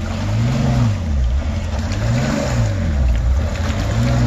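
Jeep Cherokee Trailhawk engine under throttle as it is towed out of deep mud on a strap, its pitch rising and falling over and over, a little over a second each time.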